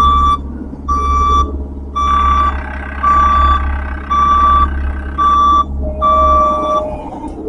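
Heavy equipment's backup alarm beeping about once a second, seven beeps, with the diesel engine running underneath as the machine backs up.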